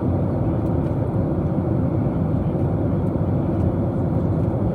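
Steady cabin noise of a Boeing 737 airliner in cruise: the even rush of engines and airflow heard from a window seat, deep and unbroken.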